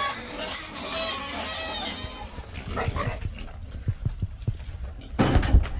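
A pen of young wild boars squealing high-pitched in a chorus, noisy with hunger. After about two seconds the squeals give way to short clicks and crunches as they feed at the trough, with a louder burst of noise near the end.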